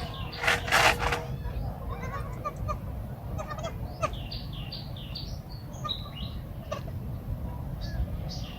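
Runs of short, high-pitched chirping animal calls, several a second, with a loud rustling burst about a second in.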